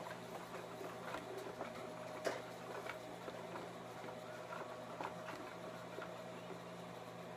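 A stirring utensil scraping and tapping in a bowl of glue and food-colouring slime mixture, giving faint, irregular small clicks, with one sharper tap about two seconds in, over a low steady hum.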